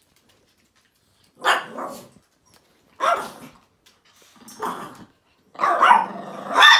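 Small dogs barking in play. Single barks come about a second and a half apart, starting about a second and a half in, then a longer run of barking near the end.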